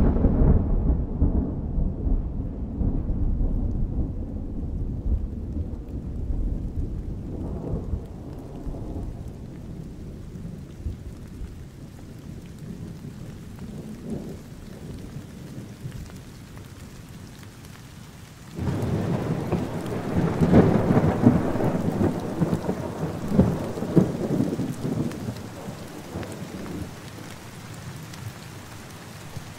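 Thunderstorm: steady rain with a low rumble of thunder fading away over the first several seconds. A second loud peal of thunder breaks out suddenly about two-thirds of the way through and rolls on for several seconds before dying back to the rain.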